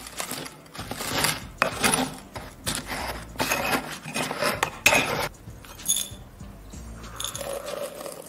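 A pestle grinding and scraping ash in a small ceramic mortar, with rapid clinks and scrapes for about five seconds. After that it goes quieter, with only a few light sounds as the ground powder is tipped into a glass beaker near the end.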